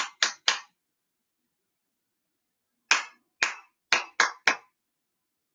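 Hand clapping in a set rhythm: three quick claps, a pause of about two seconds, then the pattern again, two slower claps followed by three quick ones. It is a clap pattern for listeners to copy.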